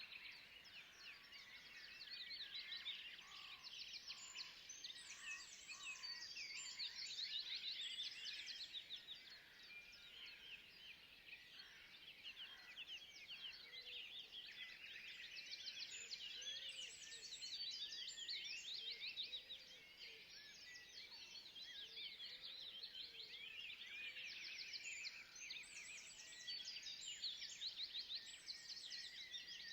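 Forest wildlife chorus: many overlapping rapid, trilling high calls that swell and fade in three waves, with a few fainter, lower single notes beneath.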